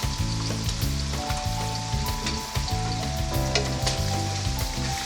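Chai sim stir-frying in hot oil in a wok: a steady sizzle, with scattered sharp clicks and scrapes as the spatula stirs against the wok.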